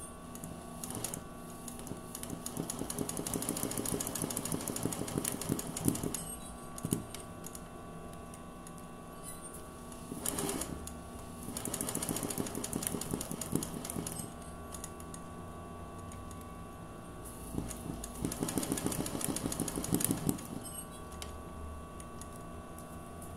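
Sewing machine stitching free-motion embroidery in three bursts of rapid, even needle strokes, with short pauses between them and a low steady hum underneath.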